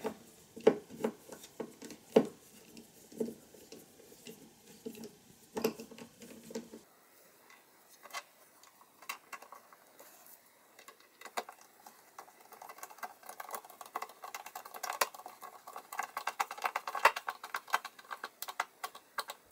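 Hand screwdriver turning the screws that fix knobs to a drawer front, with the knob and drawer handled. Scattered clicks and knocks for the first several seconds, then from about eight seconds in a denser run of small quick clicks and scraping as the screw is driven, busiest near the end.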